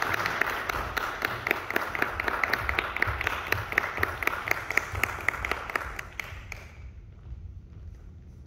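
Applause: many individual hand claps that die away about six to seven seconds in, leaving a quiet hall.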